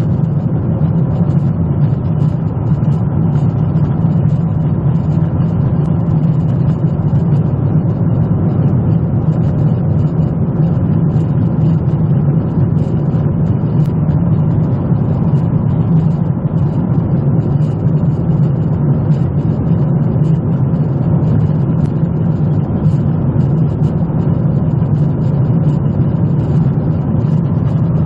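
Steady, deep cabin drone of a Boeing 777 in flight, heard inside the cabin at a window seat over the wing.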